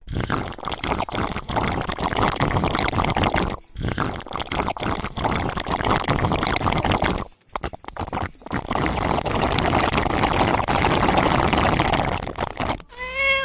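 A cat lapping water from a large bucket of water, a rapid wet splashing run that pauses twice.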